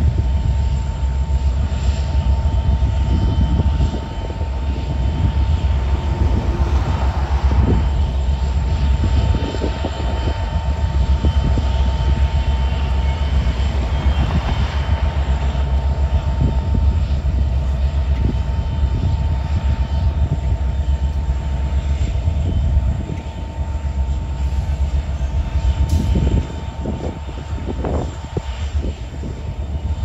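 Canadian National SD70M-2 diesel-electric locomotive's EMD 710 two-stroke prime mover running just after startup: a deep, steady rumble with a steady whine above it.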